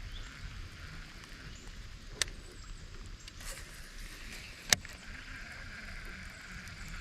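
Two sharp knocks on a kayak about two and a half seconds apart, the second louder, over a faint steady background hiss on the water.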